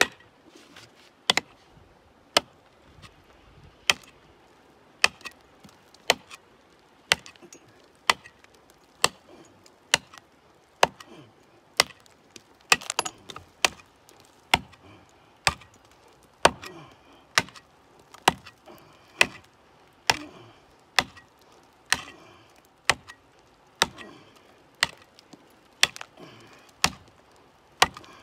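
Steel pickaxe striking hard rock, sharp blows at a steady pace of about one a second, with a few fainter knocks between them.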